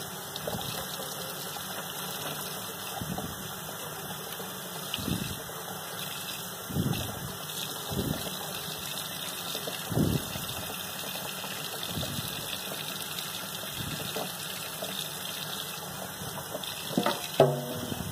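Kitchen faucet running steadily into a stainless steel sink, the stream splashing now and then as a small bluegill is rinsed under it. Near the end the water runs into a plastic bowl.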